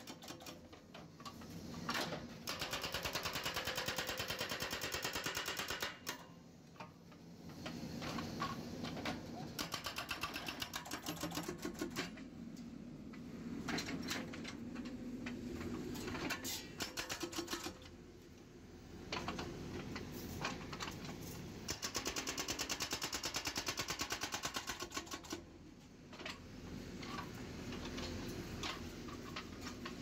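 Hydraulic breaker on a JCB 3DX backhoe loader hammering a concrete lamp-post footing. Rapid, even blows come in bursts of a few seconds, broken by short pauses, with the machine's engine running steadily underneath.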